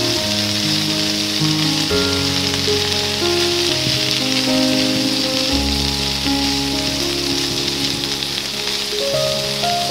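Shrimp and vegetables sizzling in oil in a frying pan as they are stirred with a silicone spatula: a steady frying hiss, under background music of slow held notes.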